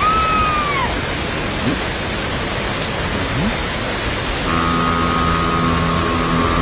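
Steady rushing noise like wind over the sea. A short cry falls away in pitch in the first second. About four and a half seconds in, a steady multi-pitched droning tone begins.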